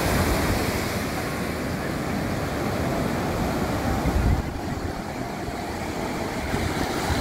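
Surf breaking and foam washing up a sandy beach in a steady rush, with wind buffeting the microphone in low rumbles. There is a louder gust or wave about four seconds in.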